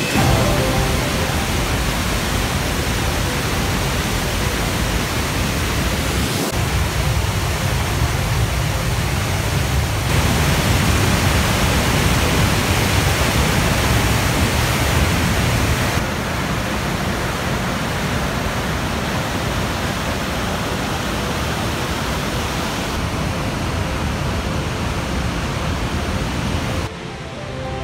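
Floodwater rushing through a dam's fully open sluice gates and down the spillway: a steady, loud roar of white water, its tone shifting a few times. Background music comes in near the end.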